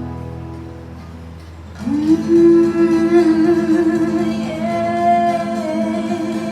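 Live acoustic guitar song: a strummed chord rings and fades, then about two seconds in a voice scoops up into one long held note over the guitar.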